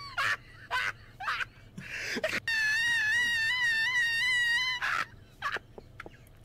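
A high-pitched voice wailing. Short rising yelps come first, then one high, wavering wail held for about two seconds that stops abruptly.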